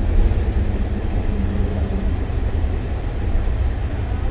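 Denver airport's automated underground train running between stations, heard from inside the car: a steady low rumble with a faint hum over it.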